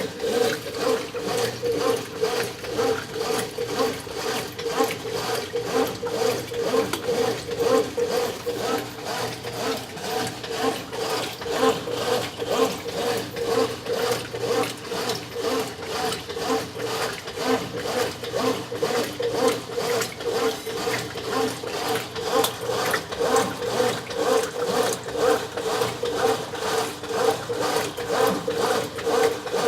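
Brastemp 9 kg top-loading washing machine agitating its load in a high water level: a steady, rhythmic churning and swishing at about two to three strokes a second.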